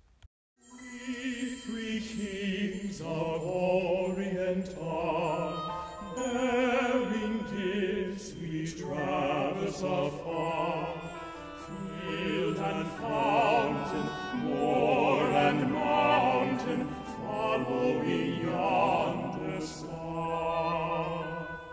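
Operatic-style singing with a strong vibrato over musical accompaniment. It starts about half a second in and fades out near the end.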